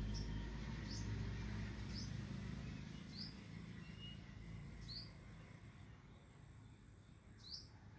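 Short high bird chirps, about one a second, over a low hum that fades away during the first few seconds.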